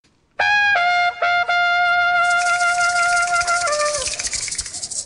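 Intro music: a few short notes, then one long held note that steps down in pitch twice toward the end while a high hiss swells over it.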